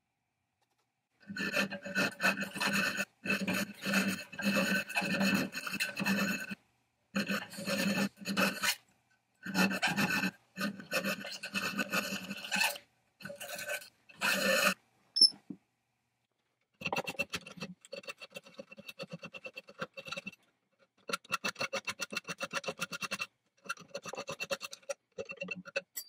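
Auger file rasping against the edges of an old auger bit, sharpening it. The first half is long runs of strokes with short pauses, then comes a single click; after a short gap, quicker and lighter strokes run until the end.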